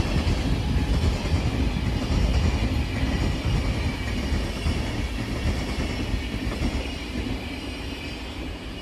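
SBB passenger train of coaches rolling past, a steady rumble of wheels on rail that slowly fades as the train moves away.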